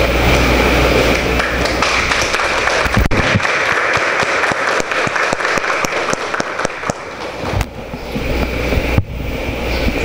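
Audience applauding steadily, a dense patter of clapping hands.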